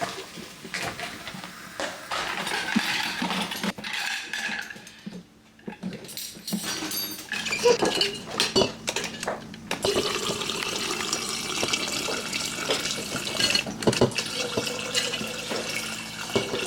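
Dishes being washed by hand at a kitchen sink: plates and cutlery clinking and clattering, with tap water running steadily from about halfway through.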